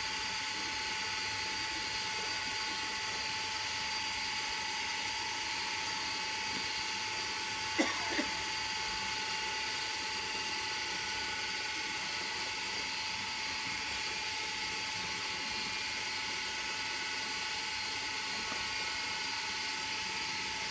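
Electric water pump running steadily, a high whine with hiss, while it pushes flushing water down the borehole pipe. One short knock about eight seconds in.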